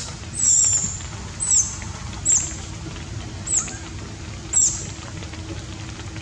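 Young long-tailed macaque giving five short, very high-pitched squeals about a second apart, each sliding down in pitch: a young monkey's distress squeals.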